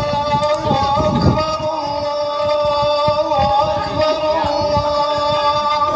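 A man singing one long held note with small ornamental turns, over a low rumble.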